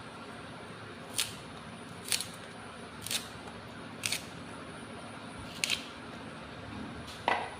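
Kitchen utensils clicking sharply six times, about once a second, over a faint steady hum.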